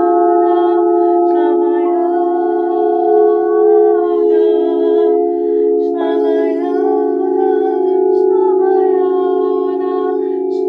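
Singing bowls holding a steady ringing drone, with long sung tones over it that glide from pitch to pitch every second or two, as in vocal toning for a sound healing.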